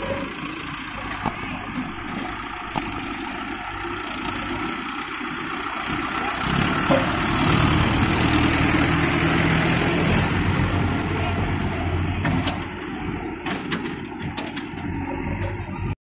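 Mahindra 555 DI Arjun Ultra-1 tractor's diesel engine running under load as it hauls a loaded trolley, growing louder as it passes close about halfway through and then easing off. Scattered sharp clicks and knocks, with a cluster near the end.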